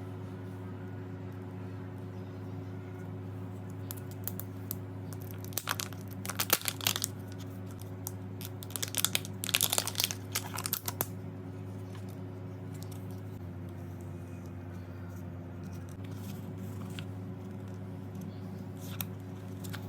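Plastic foil wrapper of a Kinder Joy egg being torn and crinkled, in bursts a few seconds in, again around the middle and near the end, over a steady low hum.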